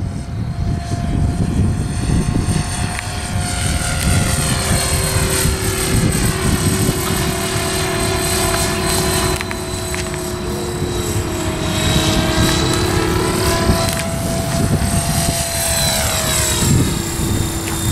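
Radio-controlled model helicopter flying, a steady motor-and-rotor whine over a low rumble. Its tone shifts as it moves around, passing close about halfway through and again near the end.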